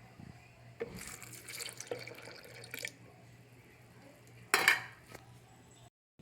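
Liquid ingredients poured into a blender jar for about two seconds, followed a moment later by one short, loud clink of kitchenware.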